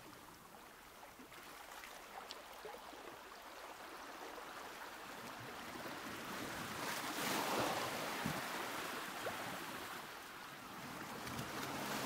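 Ocean waves washing in surf, a swell that builds to a peak about seven seconds in, eases off, and builds again near the end.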